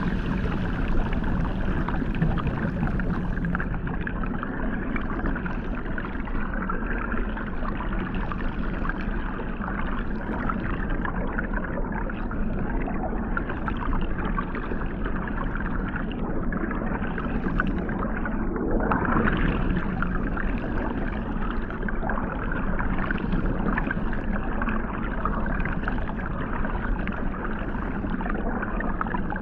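Hot tub water jets heard underwater: a steady, muffled rushing churn with the highs cut away. About two-thirds of the way through, a brief rising sweep passes over it.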